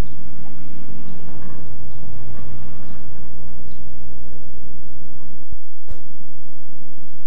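Steady low rumble with hiss. About five and a half seconds in it is broken by a click and a brief moment of silence, where the tape cuts, and then it resumes.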